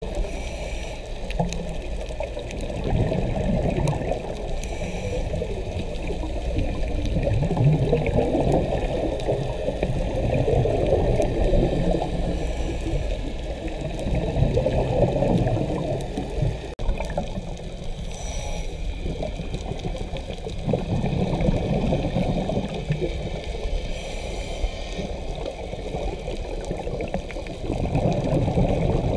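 Scuba diver breathing through a regulator underwater: a short hiss on each inhale, then a longer bubbling rumble of exhaled air, the cycle repeating every several seconds.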